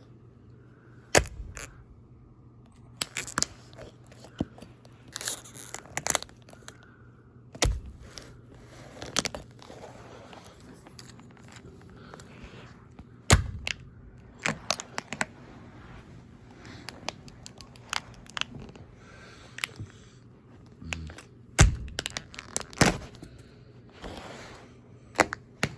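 Toy cars cracking and crunching under high-heeled pumps: irregular sharp snaps and crunches, some much louder than others, with quieter crinkling in between.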